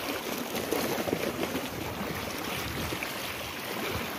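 Sea waves washing against shoreline rocks, with wind buffeting the microphone.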